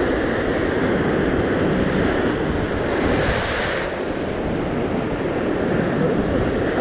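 Ocean surf breaking and washing over rock ledges, with wind rumbling on the microphone. A brief hissing wash comes about three seconds in and stops abruptly a second later.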